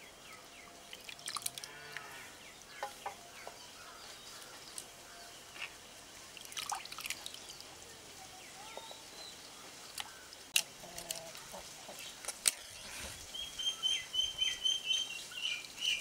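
Water splashing and dripping as chopped spinach leaves are swished and lifted by hand out of a clay pot of water, with a couple of sharp ticks. Near the end a bird calls a quick run of short, evenly repeated high notes.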